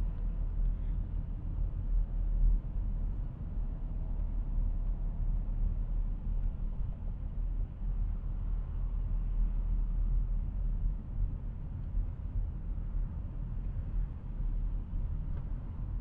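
Steady low rumble of a car's road and engine noise heard from inside the cabin while driving on a highway.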